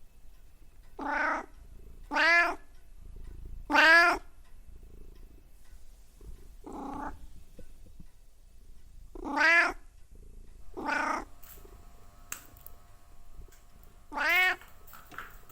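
A domestic cat meowing over and over: seven short, arching meows a second or several apart, the third one the loudest.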